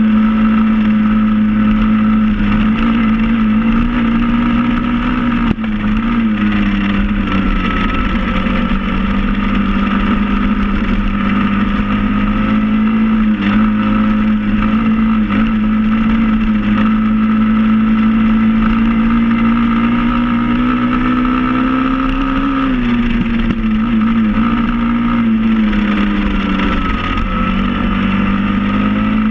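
SSR 110 pit bike's small single-cylinder four-stroke engine running under way at a steady pace. It eases off and picks back up a few seconds in, and again for a few seconds near the end.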